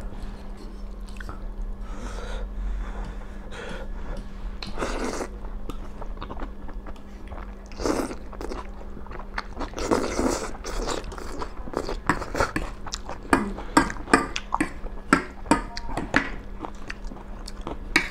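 Two people eating instant noodles, slurping and chewing, with forks and a spoon clicking and scraping on plates. The clicks come thick and fast in the second half.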